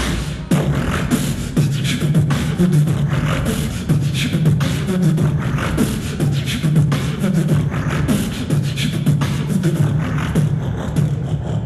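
Beatboxing through a sound system: a continuous stream of mouth-made drum hits over a low, wavering hummed bass line.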